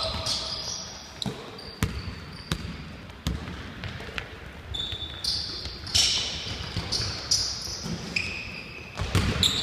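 A basketball bouncing on a hardwood gym floor, a string of sharp bounces as it is dribbled up the court. Short high sneaker squeaks and running feet come in between.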